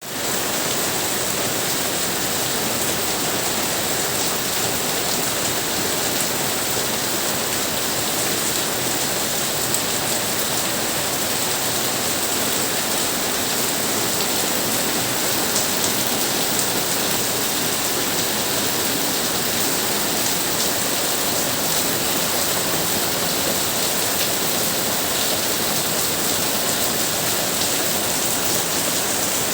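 Monsoon rain falling steadily: a dense, even hiss strongest in the high range, with fine patter of drops, unchanging throughout.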